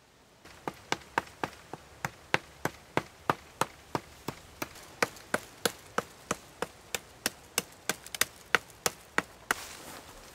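Stone axe chopping at the base of a hazel sapling: quick, regular blows, about three to four a second, starting about half a second in.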